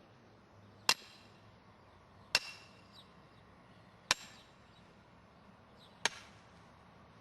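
A hammer driving a tent stake into the ground: four single blows, spaced about one and a half to two seconds apart.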